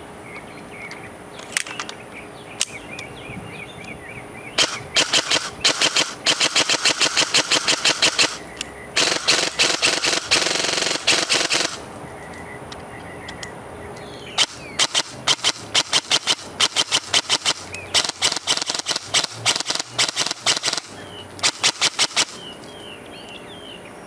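G&G Knight's Armament SR30 airsoft electric rifle firing: a couple of single shots, then rapid strings of shots, and a continuous full-auto run of about three seconds roughly nine seconds in, followed by more quick strings.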